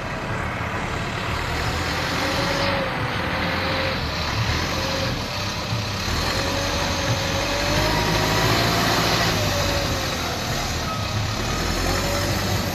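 Diesel engine of heavy earthmoving machinery running steadily under work, with a faint whine that wavers up and down in pitch in several stretches.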